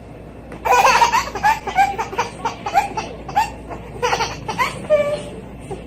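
A baby laughing in a string of short, high-pitched bursts, starting under a second in.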